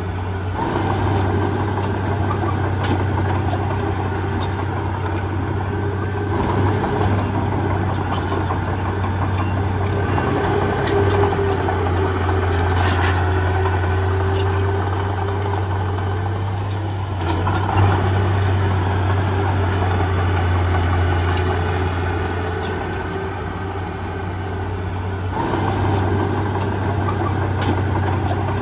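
Heavy diesel machine engine running steadily, its note swelling and easing several times as the load changes.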